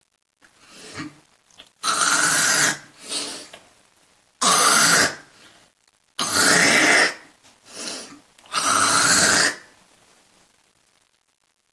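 A woman hawking and coughing harshly, bringing up phlegm from her throat: four loud, raspy bursts of about a second each, with shorter, quieter coughs or breaths between them.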